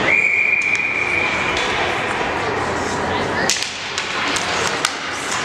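Ice hockey faceoff: a single high, steady whistle for about a second and a half, then sticks clacking sharply against each other, the puck and the ice as the puck is dropped and fought for, over a murmur of rink voices.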